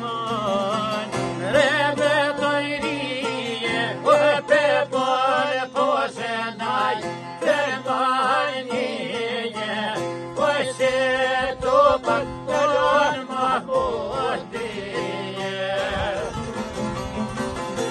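Men singing an Albanian folk song in a high, heavily ornamented voice to plucked long-necked lutes, among them a two-stringed çifteli.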